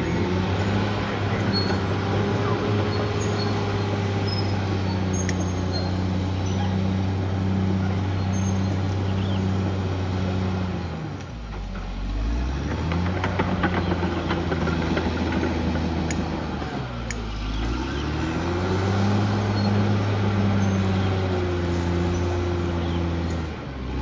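Caterpillar D6R XL bulldozer's diesel engine running steadily as the machine works. Its pitch dips and climbs back twice, around the middle and again about six seconds later.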